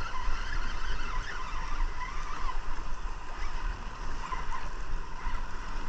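Spinning reel being cranked to bring in a hooked Arctic char, its gears whirring unevenly, over a steady noise of wind and water.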